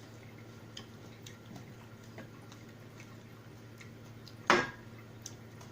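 Quiet eating at a table: faint, scattered light clicks and ticks, with one short, loud, noisy sound about four and a half seconds in.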